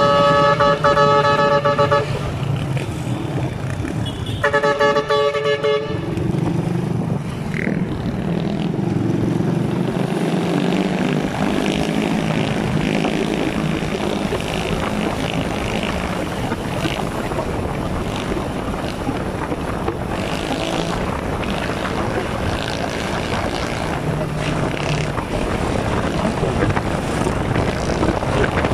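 A vehicle horn honks twice, a blast of about two seconds at the start and a shorter one about four seconds in, then steady engine and road noise of a vehicle riding along in traffic.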